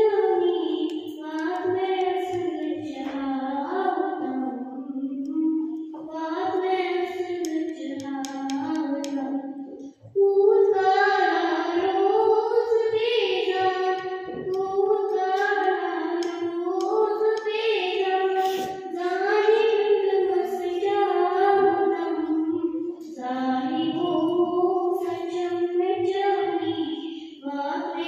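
A girl singing a melody solo into a microphone, with no accompaniment, her voice held and gliding from note to note, with one short pause for breath about ten seconds in.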